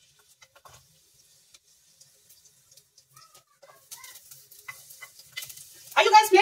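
Garlic cloves being peeled by hand, small dry clicks and crackles of papery skin, then a faint sizzle from about four seconds in as garlic pieces land in the hot pan. A high-pitched voice calls out loudly near the end.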